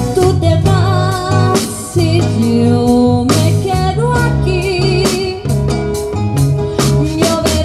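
Live band music: a woman sings a slow melody with vibrato into a microphone, over an acoustic guitar, bass notes and a steady beat.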